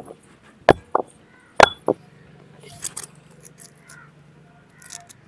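Sharp stone-on-stone knocks as the granite pestle of a grinding stone pounds dry ginger in the stone's well, about four strikes in the first two seconds. After that come faint crackles as cardamom pods are broken open by hand.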